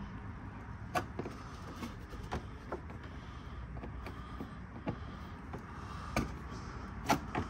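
Razor knife cutting through a Lexus GX470's plastic front fender liner: scattered sharp clicks and crackles of the plastic, about half a dozen over several seconds, over a steady low background hum.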